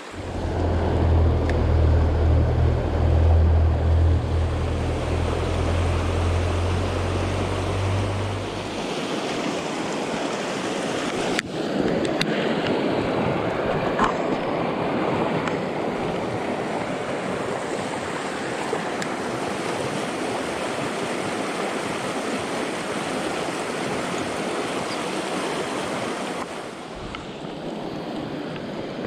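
Shallow stream riffle rushing steadily over rocks. A low rumble sits under it for the first nine seconds or so, and a single sharp click comes about eleven seconds in.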